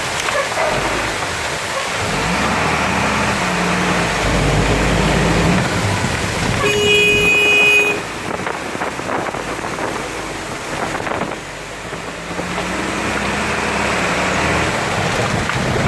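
Steady rain with motor vehicles running on the road. A vehicle horn toots once for about a second, about seven seconds in.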